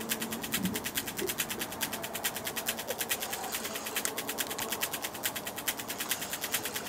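Spinning reel ticking rapidly and evenly as a hooked walleye is reeled in.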